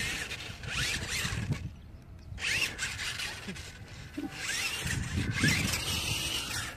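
Toy RC monster truck's electric drive motors and gears whining in several short bursts as it drives and rears up on grass, the pitch sliding up and down with the throttle, with a brief lull about two seconds in.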